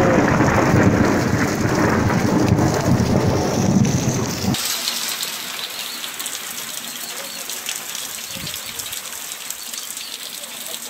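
Loud low rumble of a thunderstorm with rain. About four and a half seconds in it cuts off suddenly to a quieter, steady hiss of rain falling.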